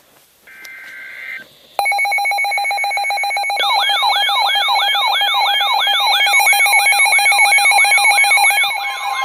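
NOAA Weather Radio emergency alert: a short burst of digital data-header tones, then a loud, steady, buzzing alert tone. After a couple more seconds a siren-like sweep joins it and repeats about three times a second, signalling a River Flood Warning.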